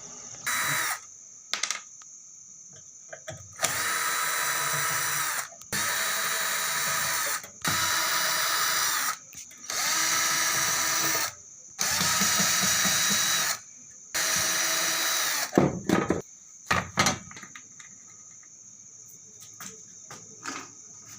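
Electric drill-driver run in six short bursts of one to two seconds each, its motor whine rising as it spins up, removing the screws of an amplifier's casing. A few sharp knocks follow near the end, with a steady high chirring of crickets underneath.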